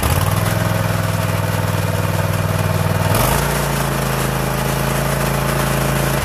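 Craftsman Z6400 zero-turn mower engine running steadily just after starting, with its speed changing about three seconds in and again near the end as the throttle lever is moved: a test of a newly fitted throttle cable, which before ran the engine only wide open or shut off.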